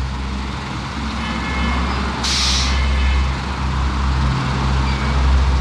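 City bus engine running in street traffic, a steady low drone, with a short hiss of air brakes about two seconds in.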